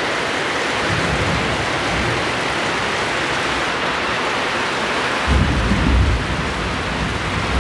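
Heavy rain pouring steadily, with a deep rumble about a second in and a louder, deeper rumble from about five to six seconds in.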